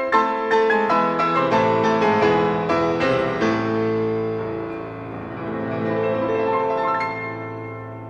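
Piano-led instrumental music: a quick series of struck notes, then a held chord over a low bass note that fades out near the end.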